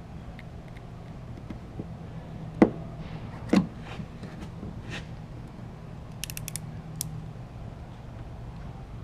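Hand tools clicking and knocking during emblem removal on a truck: two sharp knocks about a second apart, then a lighter click, a quick run of ticks and one more click, over a steady low hum.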